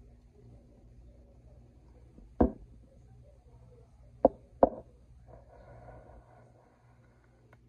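Three sharp knocks over a faint steady room hum: one about two and a half seconds in, then a close pair near the middle.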